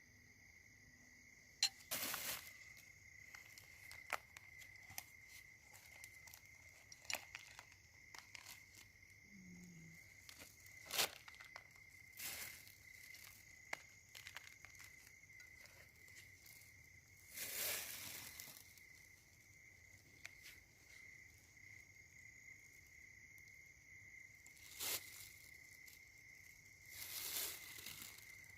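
Steady high chirring of insects, with scattered sharp clicks and several short rustling, crinkling noises.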